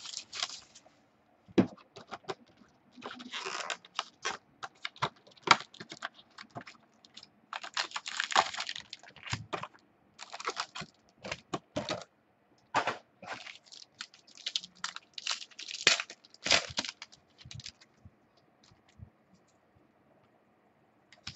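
Hands opening a box of Panini Spectra football cards: a busy run of sharp clicks and taps with longer stretches of rustling and tearing packaging, stopping about eighteen seconds in.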